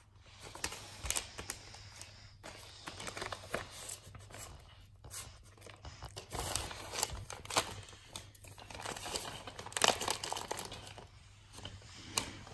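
Wrapping paper crinkling and tearing as a cat paws and bites at a gift, in irregular rustling crackles, loudest about ten seconds in.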